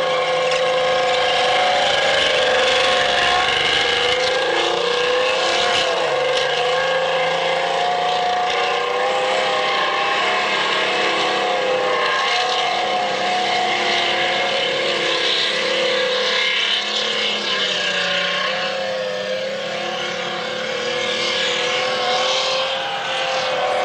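Tank engine running hard as the tank drives across rough dirt, its tracks rolling and clattering, the engine note wavering up and down.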